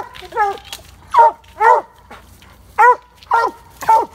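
Treeing Walker coonhound barking treed at the base of a tree: about six short, loud barks at uneven intervals. This is the hound's locate bark, announcing that game has been treed.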